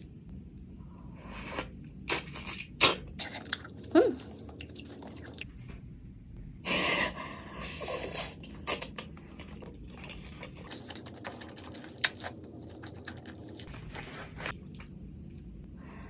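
Close-miked eating: crisp bites and wet chewing of a whole kiwi with its skin on, then a loud slurp of noodles about seven seconds in, followed by softer chewing.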